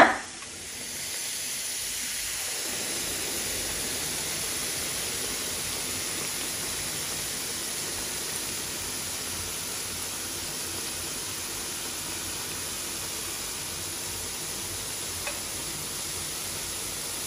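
Hot oil sizzling steadily around stuffed ripe-plantain dumplings (unnakkaya) deep-frying in a pan on high flame.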